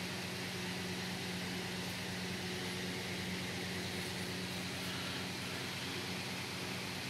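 A steady low hum over an even hiss, unchanging.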